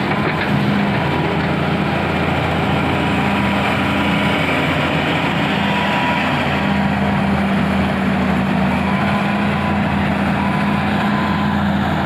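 Hitachi excavator's diesel engine running steadily under work, growing a little stronger about halfway through, with a faint high whine coming and going.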